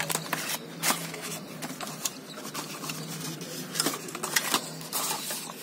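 Small cardboard charger box being opened by hand, its inner tray sliding out of the sleeve with paper scraping and a scatter of sharp taps and clicks, over a faint steady low hum.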